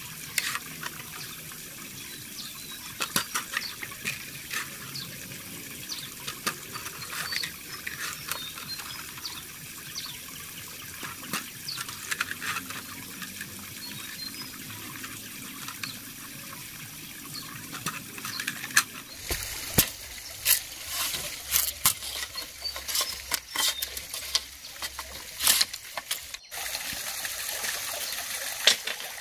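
A knife splitting an upright bamboo pole lengthwise: irregular sharp cracks and clicks, coming thicker and louder from about two-thirds of the way in, over a steady background hiss.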